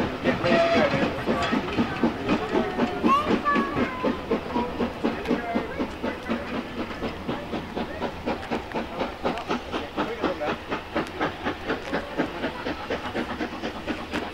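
Steam locomotive pulling a train away, its exhaust beating in an even rhythm of about four a second, with a few short squealing tones in the first few seconds. The sound fades slowly as the train draws off.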